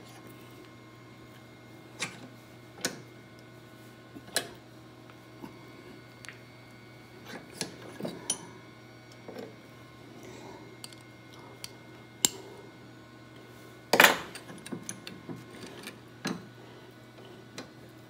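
Scattered metal clicks and clanks of a curling iron's steel barrel being worked and crushed, with one loud clank about 14 seconds in.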